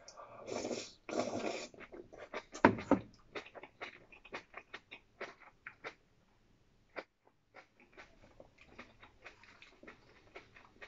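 A person eating from a soup bowl with chopsticks: two noisy slurps from the bowl, a sharp knock about three seconds in, then many small clicks of chewing and chopsticks, with a brief pause in the middle.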